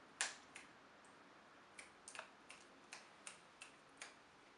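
A telescopic selfie stick with a phone clamp being handled and adjusted: a series of about ten sharp clicks at uneven intervals. The loudest comes about a quarter second in.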